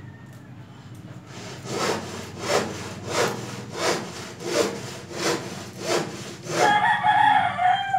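Rhythmic sawing, about eight back-and-forth strokes at a little over one a second, a blade working through something. Near the end a high, drawn-out pitched call or squeal sounds for about a second, louder than the strokes.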